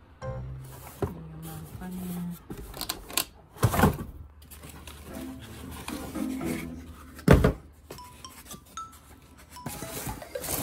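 Background music under the handling of a laptop's cardboard box and foam sleeve, with two loud thumps about four and seven seconds in.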